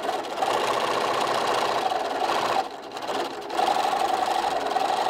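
Electric sewing machine stitching through layers of fabric in two runs, the first about two and a half seconds long, then a short pause and a second run. It is backstitching to lock the seam.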